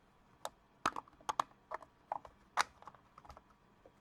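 3D-printed plastic case parts of a home-made fume extractor clicking and knocking as they are handled and pressed together into an interference fit: a string of short, sharp, irregular clicks.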